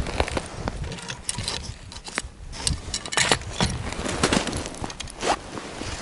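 Irregular rustling and scraping with many short clicks scattered through it.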